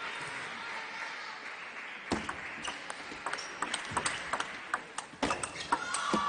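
Table tennis rally: the plastic ball clicks off the rackets and the table in quick succession, about three hits a second, starting about two seconds in.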